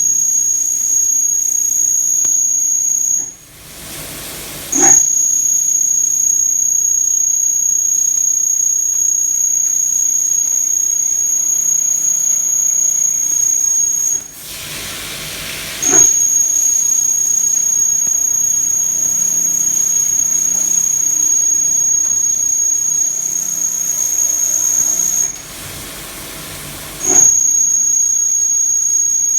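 CNC milling machine thread-milling an M24 thread, giving a steady high-pitched whine. The whine breaks off three times, about every 11 seconds, for a second or two of quieter hissing, then comes back each time with a short jolt.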